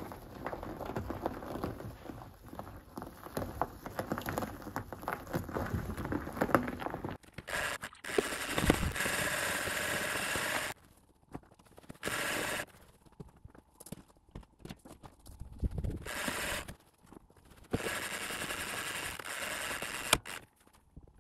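A trailer winch hauling a motorless VW Golf Mk2 up onto a car trailer. There are about seven seconds of crackling and clicking, then the winch runs in several bursts of one to three seconds, each starting and stopping abruptly.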